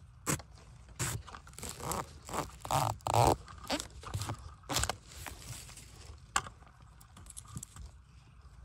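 A long knife blade hacking and scraping into soil and dry bamboo leaf litter to cut a bamboo shoot from its base. It comes as a run of irregular sharp strokes, loudest around three seconds in and thinning out after about five seconds.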